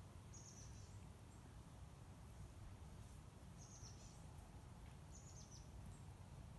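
Quiet forest ambience with a faint low rumble, and a small bird giving a short high call three times, a few seconds apart.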